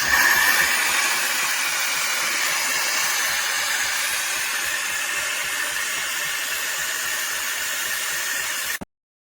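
Loud steady hiss with faint low pulsing about five times a second, cutting off abruptly near the end.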